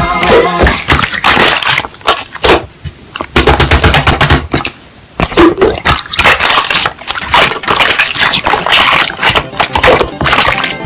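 Slime being squeezed and pressed by hand, giving dense rapid crackling and popping clicks, with two brief pauses.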